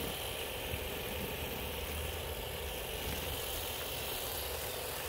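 Garden-hose foam gun spraying thick car-wash foam onto a car: a steady, continuous hiss of spray with a low rumble underneath.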